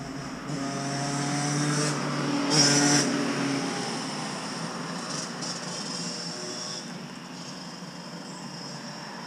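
A motor vehicle on the road alongside passes with its engine note swelling, loudest about two and a half to three seconds in, then fading away.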